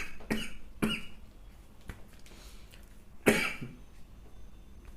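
A person coughing from a sore throat: two short coughs near the start, then a louder cough about three seconds in.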